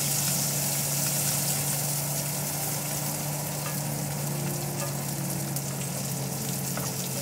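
Sliced onion and garlic sizzling in hot oil in a stainless steel frying pan, stirred with a spoon, with a few faint clicks of the spoon against the pan. A steady low hum runs underneath.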